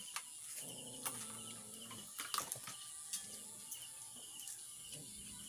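Scattered small clicks and cracks of hands picking apart crab shells and food over plates and metal trays during a meal, the loudest a couple of seconds in. A steady high-pitched hiss runs underneath.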